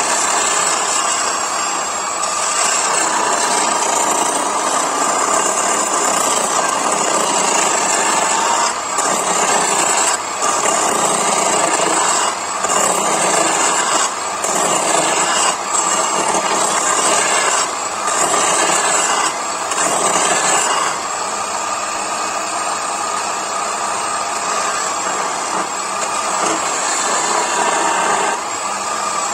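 Parkside PDM 600 wood lathe running while a hand-held turning chisel cuts a spinning wooden spindle: a steady, rough hiss of shavings being peeled off over the motor's hum. In the middle stretch the cutting noise drops out briefly every second or two.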